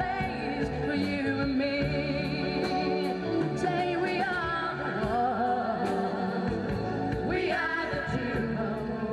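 A group of singers performing a song live, with instrumental backing and a steady beat.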